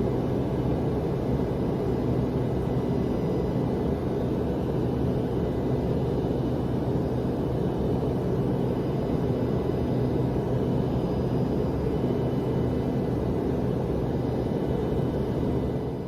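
Steady drone of an airliner's cabin in flight: even engine and airflow noise with a faint constant hum, unchanging throughout.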